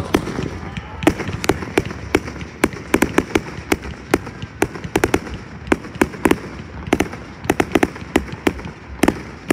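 Fireworks display: aerial shells bursting, with many sharp bangs and cracks following one another several times a second at irregular spacing.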